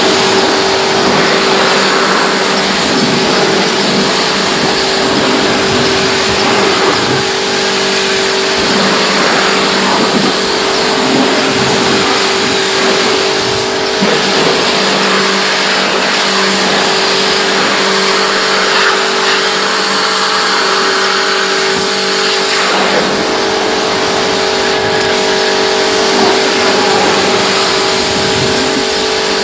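Pressure washer running with a steady motor hum and the loud hiss of its water jet.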